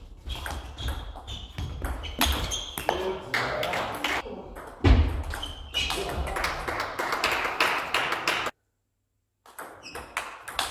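Table tennis rally: the ball clicking off the bats and the table in quick alternation. The sound drops out completely for under a second about eight and a half seconds in.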